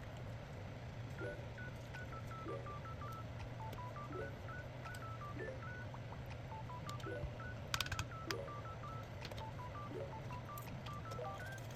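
Background music: a simple melody of short, beep-like single notes stepping quickly up and down, over a lower repeating note pattern and a steady low hum, with a brief cluster of clicks about two-thirds of the way through.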